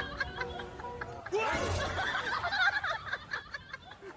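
Background music with some laughter, the sound changing abruptly a little over a second in.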